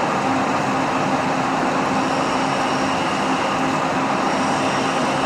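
Metal-turning lathe running steadily with a constant hum as it turns a workpiece for a BSW thread. A faint high whine joins about two seconds in.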